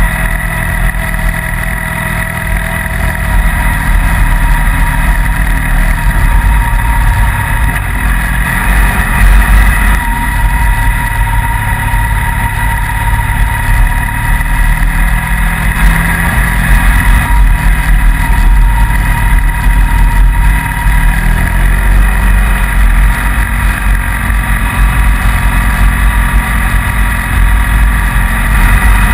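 Motorcycle engine running steadily under way, with a constant whine and a heavy low rumble of wind on the microphone.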